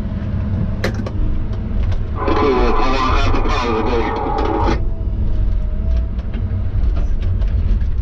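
Tigercat log loader's diesel engine running steadily, heard inside the cab as a low rumble. A louder burst of higher, busier sound lies over it for about two and a half seconds near the middle, followed by a faint thin whine.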